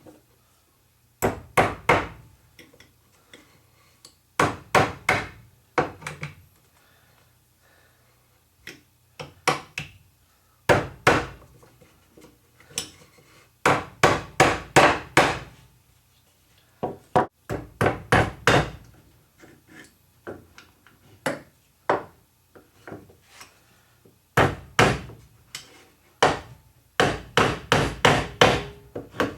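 A hammer striking wood in irregular bursts of several quick blows, with short pauses between the bursts.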